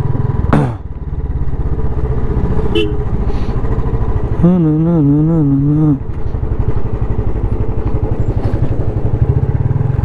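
Motorcycle engine running steadily under way, a dense low rumble, with a sharp knock just after the start. A man's voice is heard briefly for about a second and a half midway.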